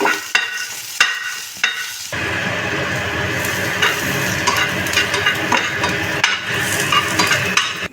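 Sliced onions frying in hot oil in a pan, stirred with a spatula, as they are browned. A few scraping clicks of the spatula at first, then steady sizzling with light stirring from about two seconds in.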